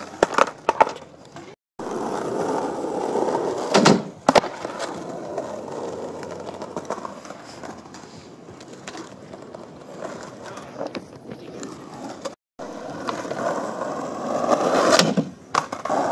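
Skateboard wheels rolling over rough concrete, with several sharp clacks of the board popping and hitting the ground during flip tricks. The sound cuts out completely twice, briefly.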